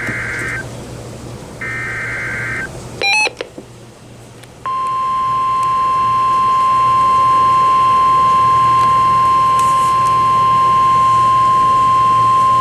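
NOAA Weather Radio emergency alert signalling. Two short bursts of SAME digital data and a quick rising run of beeps are followed, about four and a half seconds in, by the steady 1050 Hz warning alarm tone, which announces a new warning.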